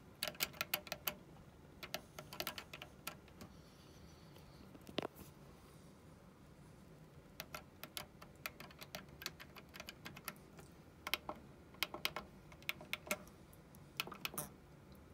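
Front-panel transport push-buttons of a Luxman K-351 cassette deck clicking as they are pressed over and over, in quick bursts of several clicks with short pauses between. The STOP button is broken.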